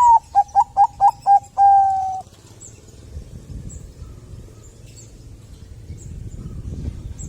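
Bangkok-line zebra dove (perkutut) giving one full cooing song phrase: an opening note, about five quick clipped coos, then one long held coo, all over in about two seconds. After it only faint high chirps over a low background rumble.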